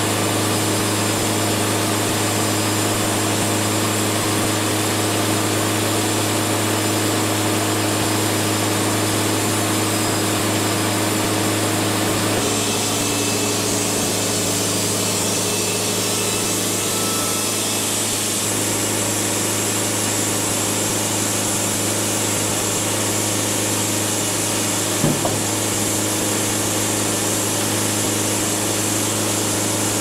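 Wood-Mizer portable band sawmill running steadily, its engine and band blade sawing a red cedar log. The pitch shifts slightly about twelve seconds in, and there is a brief knock near the end.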